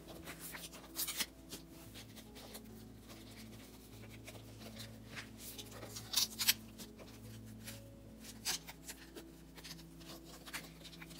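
Plastic binder sleeves crinkling and rustling, with light clicks and taps, as photocards are slid into the pockets; the loudest crinkles come about a second in and again around six seconds in.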